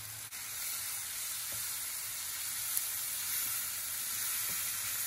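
Onion, tomato and spice-powder masala sizzling in oil in a non-stick frying pan as it is stirred with a wooden spatula.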